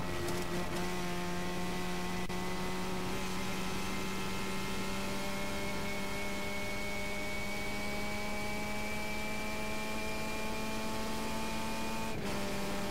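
Formula Mazda single-seater's engine heard from the cockpit, pulling hard with its pitch climbing slowly as the car accelerates down a straight. There is a short break and drop in pitch at the start and again near the end as it shifts up a gear.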